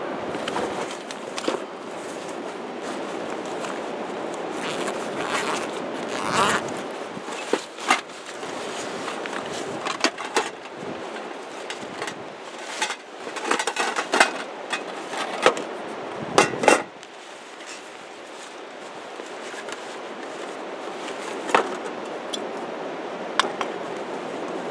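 Nylon stuff sack and backpack being rummaged through and handled, with irregular rustles, crinkles and small clicks, over a steady rushing background.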